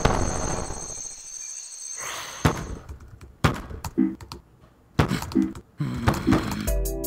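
Cartoon sound effects: the fading tail of a boom, then laptop typing and clicking with two short low blips in the middle. Light elevator music starts near the end.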